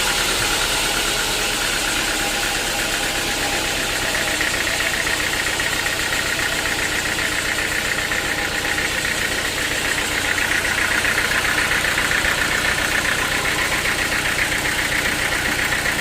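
Sawmill engine running steadily, with a steady high whine that grows a little stronger in the second half.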